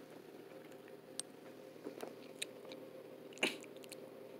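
Quiet mouth sounds of a man drinking from a can: small sip and swallow clicks, then one sharper, louder smack a little before the end, over a faint steady hum.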